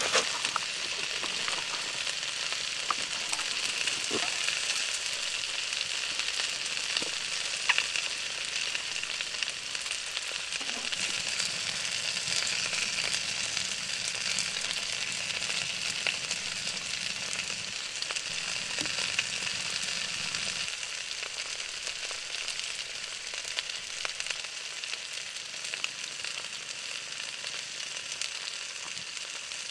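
Grated vegetable, sliced bacon and a sausage frying in a cast iron skillet: a steady sizzle with a few faint pops.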